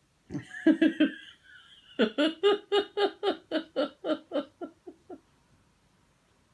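A person laughing: a few laughs, then an even run of about a dozen 'ha' pulses, about four a second, trailing off a little after five seconds in.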